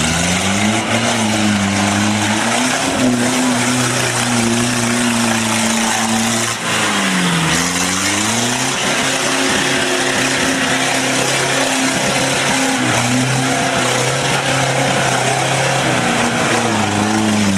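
Off-road Jeep's engine revving hard under load as the 4x4 crawls and spins through a mud pit. The revs hold high, dip and climb back about seven seconds in, and drop briefly again near the end.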